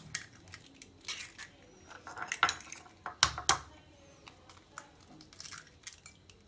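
Eggs being cracked on the rim of a glass mixing bowl: a series of sharp taps and clinks of shell on glass, with the loudest pair a little past the middle.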